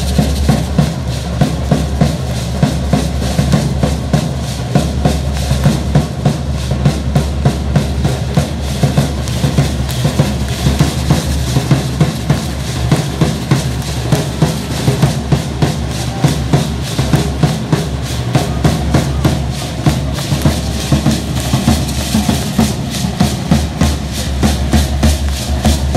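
Drum beating a steady, quick, driving rhythm for a Matlachines dance, with the dancers' rattles shaking along.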